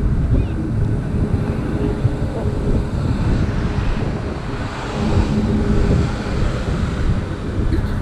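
Wind buffeting a GoPro's microphone in a low, uneven rumble, over the wash of surf on the beach.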